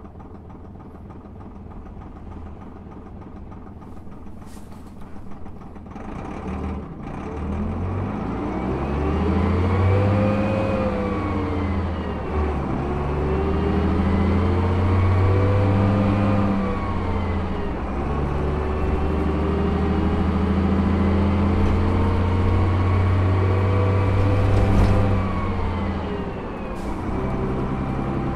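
Leyland 0.510 8.2-litre turbodiesel engine of a Leyland National Mk1 single-deck bus, heard from on board while driving. It runs quietly for the first six seconds or so, then pulls harder and louder, its pitch rising and falling in several long sweeps as the bus accelerates and eases off.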